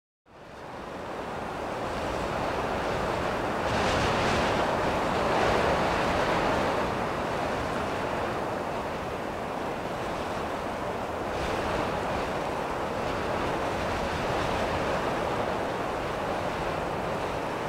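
Strong, gusty wind blowing across the microphone in a steady rush, swelling about four seconds in and again near the middle.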